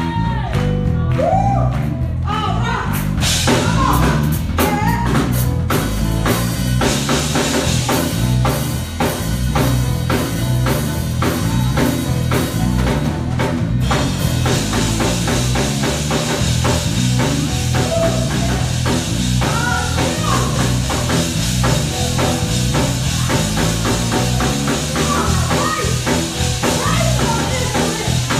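Live church band playing upbeat music: a drum kit with cymbals, bass and guitar, with voices singing over it. The cymbals grow busier about halfway through.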